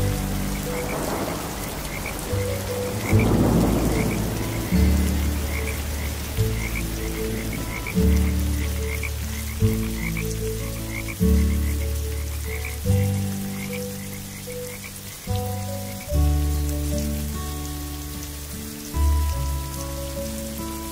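Rain and frog soundscape: steady rain hiss with frogs croaking in quick repeated calls, over low held tones that change pitch about every second and a half.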